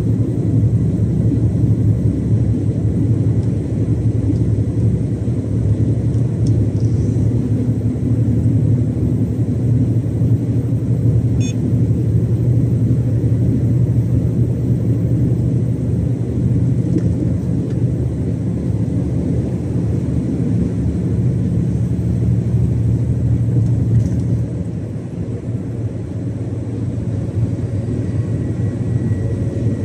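Iveco Stralis 570XP truck's Cursor 13 straight-six diesel running steadily at motorway speed, a low drone with road rumble. The drone drops for a couple of seconds near the end, then picks up again.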